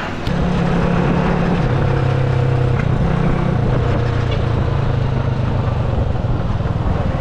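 A small Honda motorcycle's engine running as it is ridden along a road. Its steady note steps down in pitch about two seconds in.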